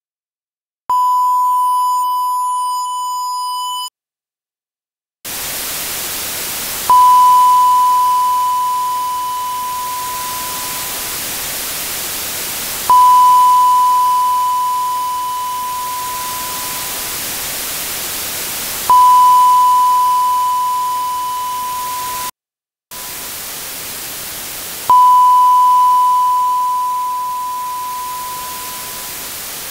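A 1 kHz sine-wave test ping, rendered at 16-bit at −80 dBFS and boosted 80 dB for listening. About a second in, an undithered version sounds for about three seconds as a buzzy tone full of overtones, which is truncation distortion. After a short silence, a steady dither hiss, strongest in the treble, runs on, and the ping sounds over it four times about six seconds apart, each starting sharply and fading into the hiss.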